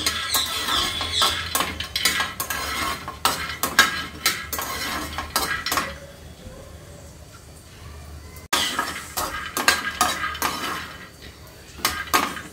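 A steel spoon stirring peanuts as they dry-roast in a metal frying pan: the spoon scrapes and clinks against the pan and the peanuts rattle across it. The stirring stops for a couple of seconds about six seconds in, starts again, and pauses briefly once more near the end.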